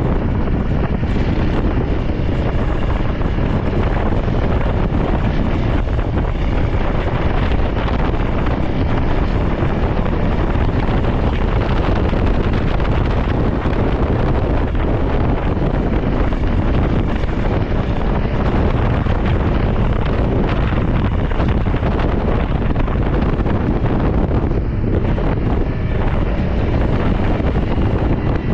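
Steady wind noise buffeting the microphone of a trail motorcycle on the move, with the bike's engine running underneath.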